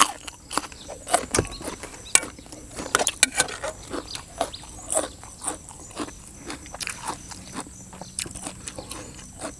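Close-up chewing of a spicy chicken-feet salad: irregular crisp crunches and wet mouth clicks, several a second.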